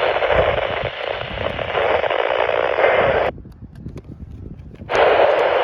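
Radio receiver static: a steady hiss that cuts off abruptly a little over three seconds in and comes back about a second and a half later.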